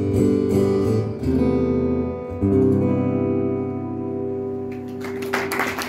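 Acoustic guitar strummed to a close, the final chord left to ring out. Audience applause starts near the end.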